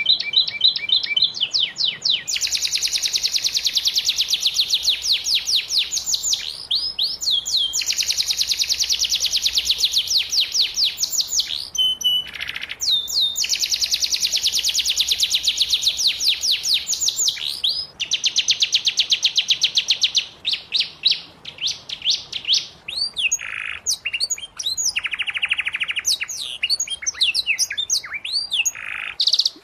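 Domestic canary singing a long, continuous song of fast trills, each made of rapidly repeated high notes, with a few short breaks between phrases.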